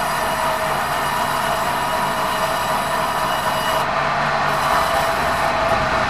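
Large sawmill band saw running with a steady whine, while a squared meranti beam is fed along the rollers to the blade.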